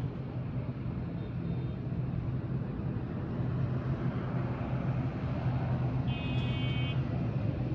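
Steady low rumble of distant engines around an airfield, with a short high-pitched tone about six seconds in.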